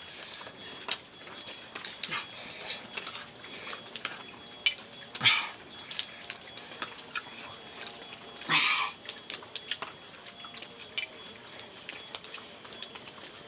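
A person eating with his fingers close to the microphone: mouth smacking and small clicks throughout, with two louder short sounds about five and eight and a half seconds in.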